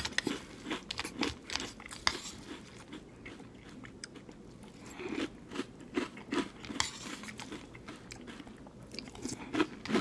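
A person chewing and crunching a mouthful of cereal, with short clicks and scrapes of a metal spork against the bowl.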